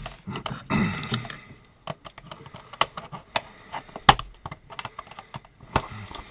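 Small cardboard box being handled and picked at with metal tweezers: an irregular string of sharp clicks and taps, the loudest about four seconds in.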